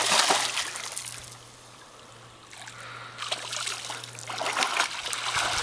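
Shallow lake water splashing as a dog leaps and wades through it, loud at the start, dying to a lull, then picking up again with smaller splashes and drips near the end.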